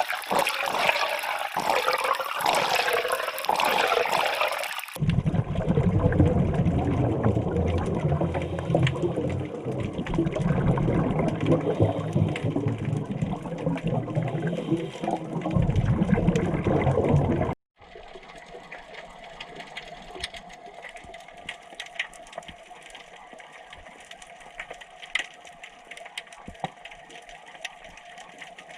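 Underwater noise from a scuba dive, bubbling at first, then a loud rushing gush of water and bubbles with a deep rumble. After a cut it becomes much quieter: a steady hum with scattered faint crackling clicks.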